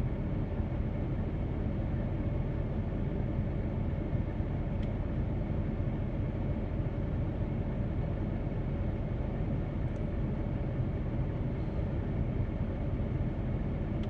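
Steady low rumble with a light hiss, unchanging throughout, with no separate events.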